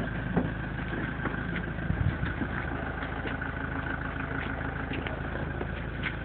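Ambulance engine idling steadily, with a few light knocks.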